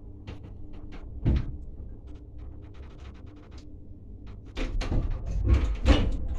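Old Transporta elevator at a landing: a low hum with scattered small clicks, a single thump about a second in, then a louder clatter of door hardware near the end as the landing door is worked.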